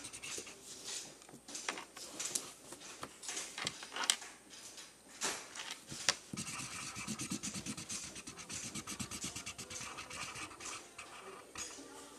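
Drawing on paper: short scratching strokes of a drawing tool, turning into quick back-and-forth scribbling from about halfway through.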